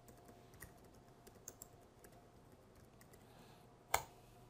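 Computer keyboard typing: scattered light key clicks, then one much louder key stroke near the end as the Enter key runs a command.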